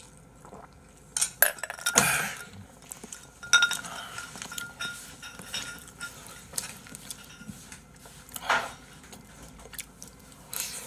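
Spoons clinking and scraping against bowls and a wok as fried rice is scooped up and eaten, in irregular sharp clicks. One clink rings on briefly about four seconds in.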